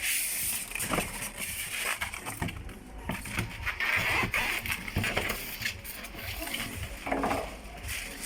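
Handling noises from a vacuum cleaner being moved and set out: irregular rustling and crinkling with many short clicks and knocks. The motor is not running.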